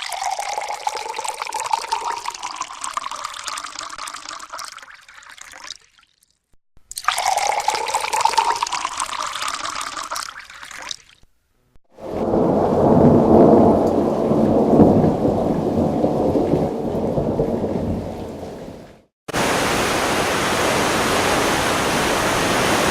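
A series of separate sound-effect clips, each cut off abruptly. A noisy clip with a faint rising tone plays twice, then a louder, deeper rumbling noise, then a steady hiss.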